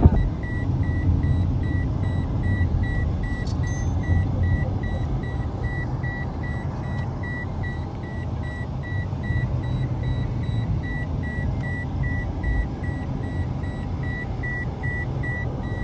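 An electronic warning beeper sounding steadily about twice a second over the low rumble of a running vehicle engine.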